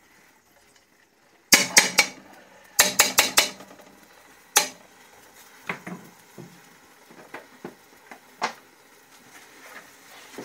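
Metal spoon clinking against a metal karahi: a quick run of about four sharp clinks, then about five more, then a single loud one, followed by several lighter scattered taps.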